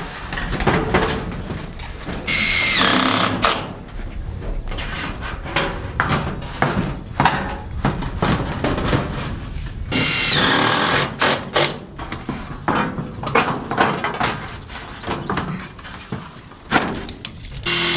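Corrugated steel wall panel being handled and pressed into place, clattering and knocking, with a cordless screw gun driving screws in two loud bursts, about two seconds in and about ten seconds in, its whine dropping in pitch.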